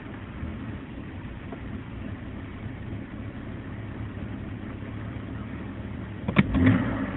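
BMW E46 325i's 2.5-litre straight-six idling roughly, with one sharp pop near the end: the popping that comes with its rough idle.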